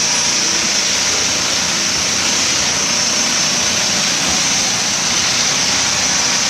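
Small petrol engines running steadily, driving concrete poker vibrators during a concrete pour, with a constant high hiss over the engine noise.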